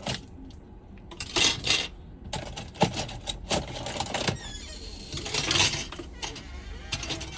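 Small tools and phone parts being handled on a workbench: irregular clicks, clinks and scraping, with two louder bursts of rubbing and scraping about a second and a half in and again around five and a half seconds.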